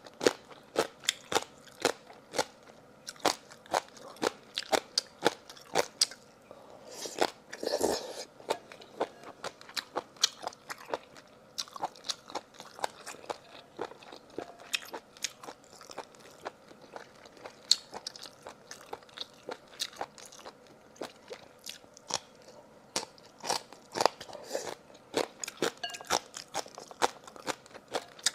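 Close-miked eating: crisp crunching and chewing of food, with many sharp crunches a second. About seven to eight seconds in there is a short, softer rustling sound among the crunches.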